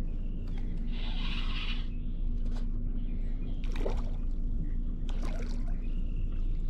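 Water lapping against a small boat's hull over a steady low wind rumble, with a faint steady hum that stops about six seconds in.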